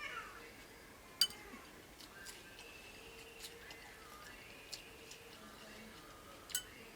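Quiet mealtime tableware sounds: scattered light ticks, with two sharp clicks about a second in and near the end.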